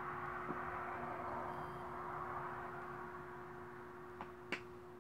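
Two small sharp clicks close together near the end as a metal lipstick tube is handled. Under them is a faint steady hum and a soft hiss that fades.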